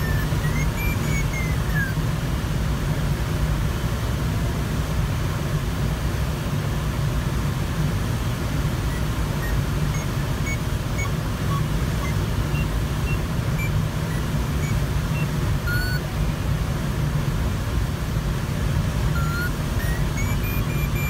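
Steady rush of airflow over a Sparrowhawk ultralight glider's canopy in cruising flight, heard from inside the cockpit. Faint electronic tones from the audio variometer glide up and down in pitch near the start and end, with a few short beeps midway.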